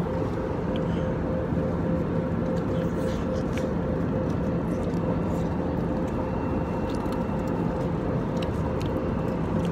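Steady drone of a jet airliner cabin in flight: engine and airflow noise with a constant low hum and a higher steady tone, and a few faint clicks over it.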